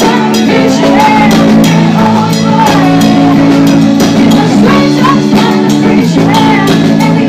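Live band playing: a woman singing lead over guitar, bass and drums, loud and steady throughout.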